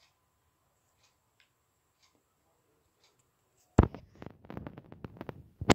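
Near silence, then about four seconds in a sharp knock followed by a quick run of clicks and rustles and a second knock at the end: handling noise from a smartphone being picked up and turned over.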